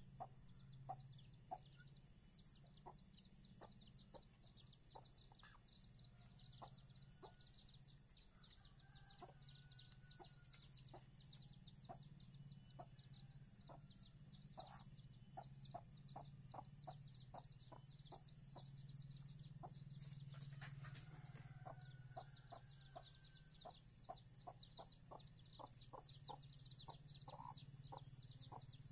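Mother hen clucking softly in a steady series of short low clucks, coming more closely together in the second half, while her chicks peep continuously in rapid high falling notes, over a steady low hum.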